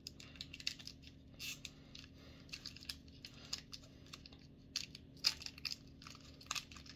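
Crinkly foil wrapper of a small chocolate being picked at and torn open by fingers: irregular short crackles and rustles.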